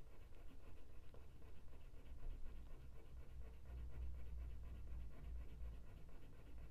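Black coloured pencil shading back and forth with firm pressure on velvet-surfaced paper: a faint, rhythmic scratching, over a low steady rumble.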